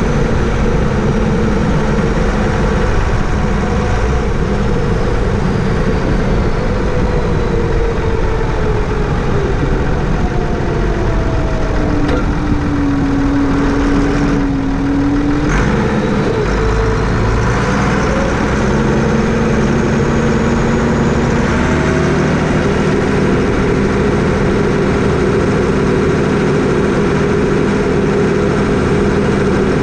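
Massey Ferguson 399 tractor's six-cylinder diesel engine running steadily. Its pitch sags about halfway through and then climbs back up as engine speed changes.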